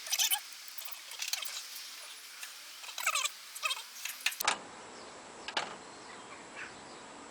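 Small birds chirping and twittering with quick rising and falling notes. Then an abrupt change to a quieter background with a faint steady high whine and a single sharp click about a second later.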